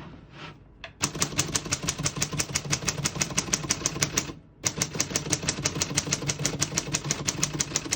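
A 1938 Corona Standard manual portable typewriter typing a fast, even run of keystrokes, about seven a second. The typing starts about a second in and breaks off briefly about halfway.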